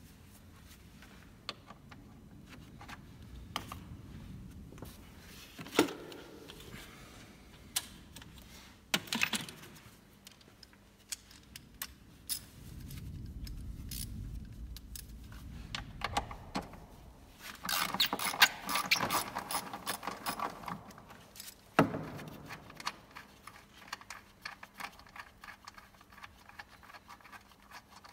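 Metal hand tools at work in a car's engine bay: sockets and a ratchet wrench clinking and clicking. A few sharp knocks are spread through it, with a dense burst of rapid ratchet clicking about two-thirds of the way in and light, fast clicking near the end.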